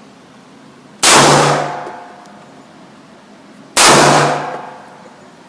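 Two gunshots about two and a half seconds apart, each sharp and loud with a ringing tail that fades over about a second.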